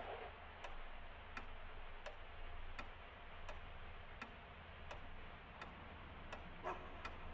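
Faint, even ticking, about three ticks every two seconds, over a low steady hum.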